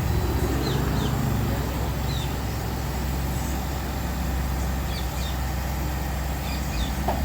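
Mahindra Supro's small diesel engine idling steadily with an even low rumble.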